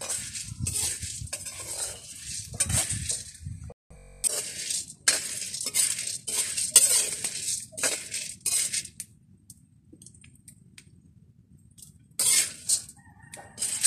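A metal spoon scraping and stirring kapeng barako coffee beans in a metal pan as they dry-roast: repeated scraping strokes, about one or two a second, with the beans rattling against the pan. The stirring pauses for about two seconds near the end, then starts again.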